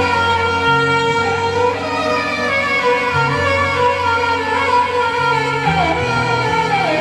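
Roland Fantom X6 keyboard playing a sustained melody on a violin-like string patch, sliding between notes, over changing bass notes: an instrumental nagma in raag Madhumanti, teen taal.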